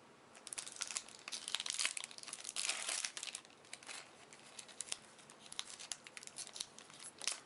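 Foil trading-card booster-pack wrapper being torn open and crinkled: a dense run of crackling and tearing in the first three seconds, then scattered crinkles as the wrapper is handled.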